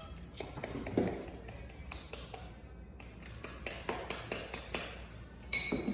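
Irregular light taps and knocks from a capuchin monkey patting and moving about on a hard countertop.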